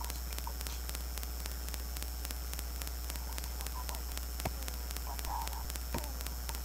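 Steady low electrical hum with hiss and a fast, regular faint ticking of static from an open microphone. Two sharp clicks come about four and a half and six seconds in.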